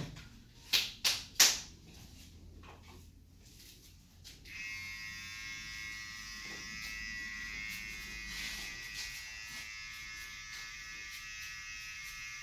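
Three sharp taps about a second in, then an electric hair trimmer starts and buzzes steadily as it cuts a boy's hair.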